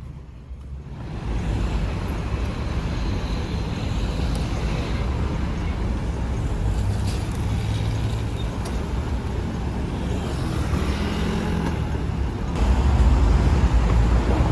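A vehicle on the move: steady road and engine rumble, stepping up louder near the end.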